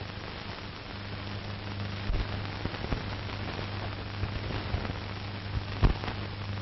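Steady soundtrack hiss with a low mains-like hum, broken by scattered crackles and a few sharper pops, the loudest about six seconds in.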